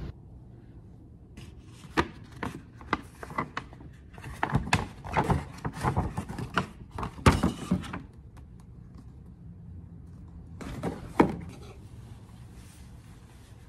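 Handling noise: a stiff paper shopping bag being rustled and crinkled, with a run of sharp taps and knocks. Later comes a quieter rustle of cloth with one sharp thunk.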